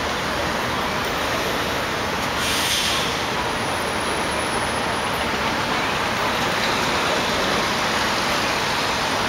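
Steady street traffic noise on a wet avenue: an even hiss of tyres and engines, with a short, sharper hiss about two and a half seconds in.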